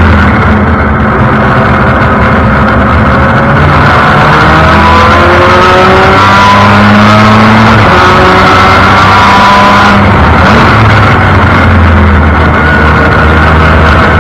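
Formula Mazda race car's rotary engine running hard on track, loud from the open cockpit. Its pitch climbs, drops at an upshift about seven seconds in, and climbs again.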